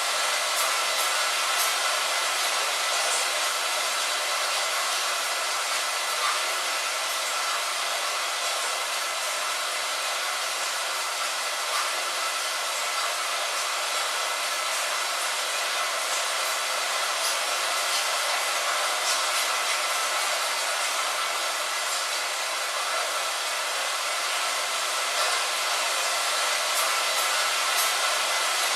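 Steady rain on a window: an even, thin hiss with no low rumble, with scattered faint drop ticks.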